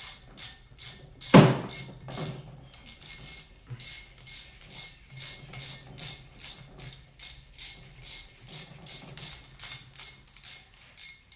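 Hand ratchet clicking steadily, about three clicks a second, as it backs a once-seized bolt out of an aluminium cylinder head, the bolt now turning easily. There is one louder knock about a second in.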